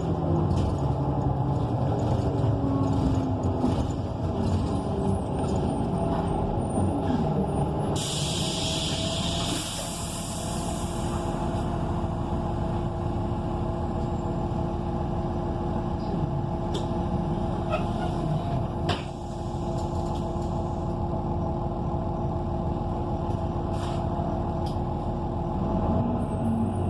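Transit bus with a Cummins Westport ISL G natural-gas engine, heard from inside: the engine note falls as the bus slows, and a sharp burst of compressed-air hiss comes about eight seconds in. The engine then idles steadily, and its note rises again near the end as the bus pulls away.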